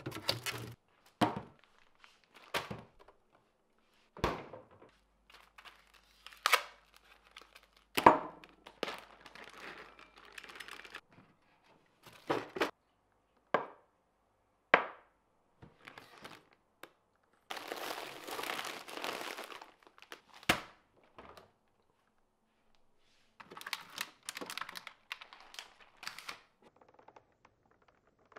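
Kitchen items handled close up: a run of sharp clicks and knocks from a fridge's plastic drawer, containers and lids being set down, with two longer bursts of crinkling plastic packaging in the second half, the last as a clear plastic egg carton is pried open.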